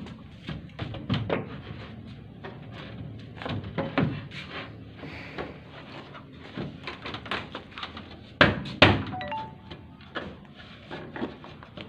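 Scattered knocks and thunks of the parts of a knock-down sheep pen's feed trough being handled and fitted into place, with two louder bangs close together about eight and a half seconds in.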